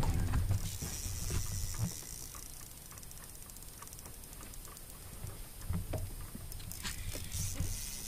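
Fishing reel ticking faintly and fast while a hooked fish is played on a bent rod, with low rumbling now and then and a few sharp clicks near the end.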